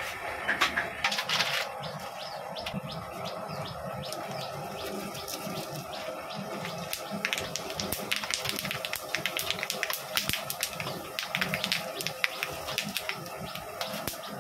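Cashews and raisins sizzling and crackling in hot oil in an aluminium kadai, with dense rapid pops throughout.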